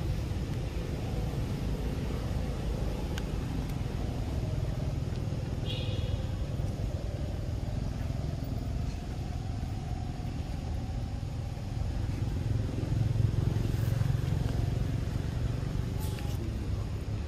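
Steady low outdoor rumble, swelling for a couple of seconds about three-quarters of the way through. A faint hum rises and falls in pitch in the middle, and there is a brief high chirp about six seconds in.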